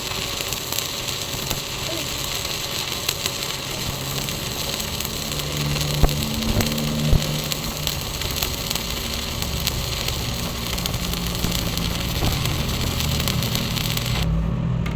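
Stick (arc) welding on rebar: the electrode arc crackles and sizzles steadily over a low engine-like hum, with two sharp knocks midway. The crackle cuts off about a second before the end, as the arc is broken.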